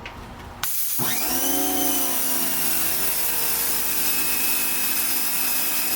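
Electric pressure washer firing with its strongest nozzle against concrete: the motor-driven pump kicks in about half a second in, its whine rising quickly and then holding steady over the loud hiss of the water jet blasting the concrete.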